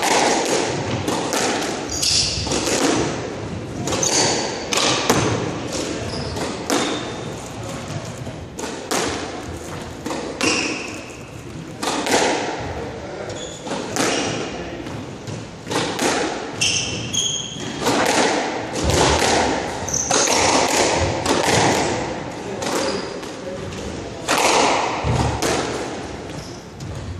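Squash rally: the ball cracks off rackets and thuds against the walls in a quick irregular series of sharp knocks that echo in the court, with short high squeaks from court shoes on the hardwood floor here and there.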